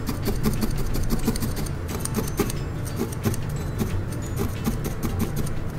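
Felting needle stabbing wool on a bristle brush mat: rapid, irregular pokes, several a second.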